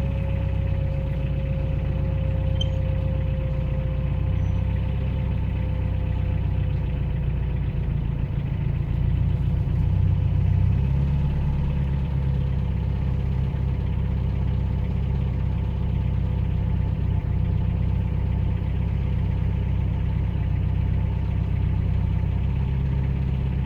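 2006 Subaru STI's turbocharged flat-four idling just after startup, with a droning whine from the fuel pump over the steady engine hum; the whine drifts slightly lower in pitch over the first few seconds. The whine comes with the fuel pressure reading high, at 5 bar instead of the usual 3.5 bar, for a reason the owner has not found.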